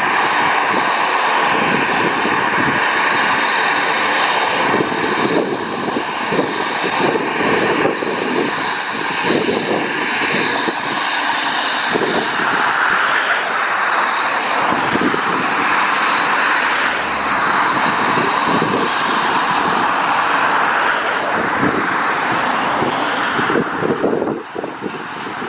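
Pilatus PC-12 NG's single Pratt & Whitney PT6A-67P turboprop engine running at taxi power, a steady turbine whine over propeller noise, as the aircraft taxis past.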